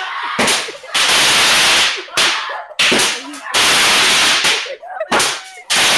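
A firework going off in a series of loud hissing bursts, each about a quarter second to a second long, separated by short gaps.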